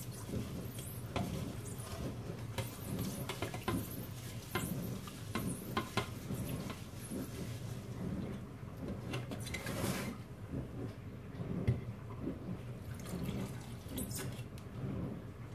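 Water splashing and sloshing as rice is swished by hand in a plastic bowl of rinse water, and the cloudy rice water is poured into a glass jar of cut spider-flower greens, which starts the greens fermenting as a pickle. A steady low hum runs underneath.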